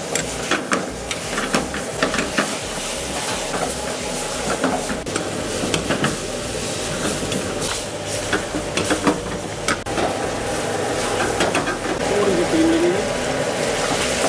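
Steel ladle stirring chicken in a thick tomato gravy in a steel pan on the stove, scraping and clicking against the metal again and again while the gravy sizzles steadily.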